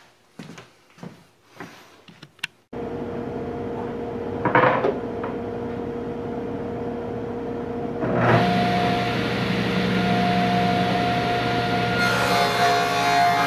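A few light knocks of wood being handled, then the steady running of a table saw. About eight seconds in it grows louder with a deeper hum, and near the end a brighter hiss joins.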